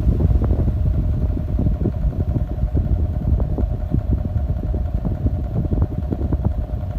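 Motil 60 cm wall fan running, with the steady hum of its motor under a rough, uneven low rumble from its air blast buffeting the microphone.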